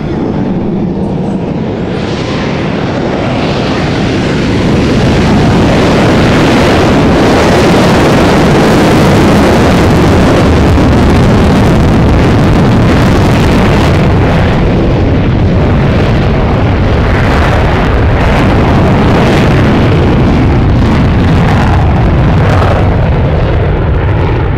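F/A-18E Super Hornet's twin General Electric F414 turbofans on the takeoff run and climb-out with afterburners lit: a loud, continuous jet rumble that swells about five seconds in and then holds.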